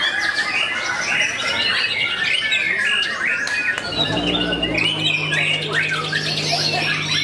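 White-rumped shamas (murai batu) singing in competition cages: a dense, overlapping stream of whistles, chirps and harsh notes from several birds at once. A steady low hum joins in about four seconds in.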